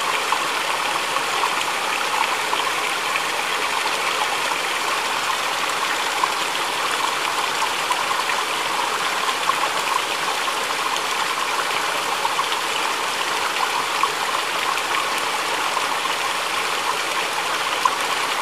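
Water pouring from a bamboo spout onto rock and splashing into a shallow, rocky stream: a steady trickling and splashing with small irregular splashes.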